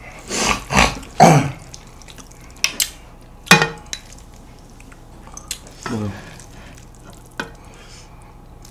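Chewy, sauce-coated jjolmyeon noodles being stirred and lifted with a wooden spoon in a large bowl and served onto a small plate: a handful of separate wet, sticky food sounds, with light knocks of the spoon and dishes.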